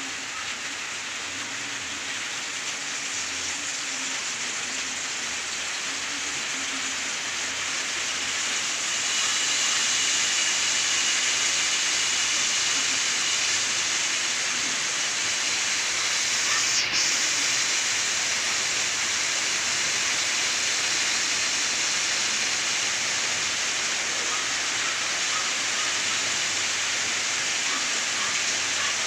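A steady, loud hissing noise that grows louder about nine seconds in and then holds steady.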